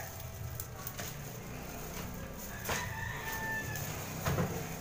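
A rooster crowing once, a single held call about three seconds in that lasts about a second. Two short knocks come just before it and near the end.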